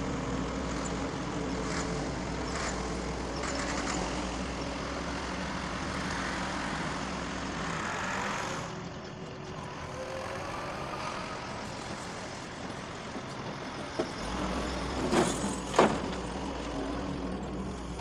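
Doosan DX140 excavator working soil: steady engine and hydraulic drone with scattered clanks. The engine note drops away about halfway through and comes back near the end, followed by a couple of loud, sharp knocks.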